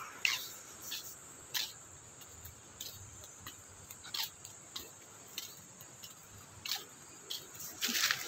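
Light footsteps scuffing along a concrete footpath, a short tick every half second to second, over a steady high-pitched insect drone.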